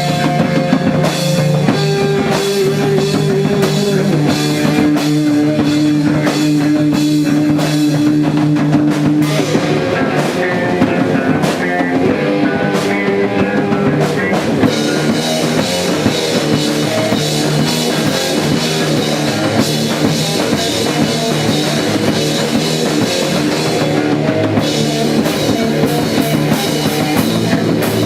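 Rock band playing a song with a drum kit and guitar, loud and steady with held melodic notes over the beat.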